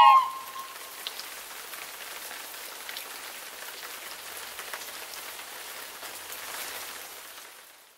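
Steady rain falling: an even hiss with faint scattered drop ticks, fading out near the end. A flute note dies away at the very start.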